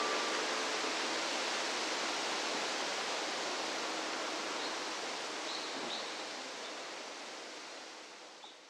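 Steady hiss of outdoor background noise. The last music-box chime notes die away in the first moment. The hiss fades slowly to near silence, with a few faint high chirps in the second half.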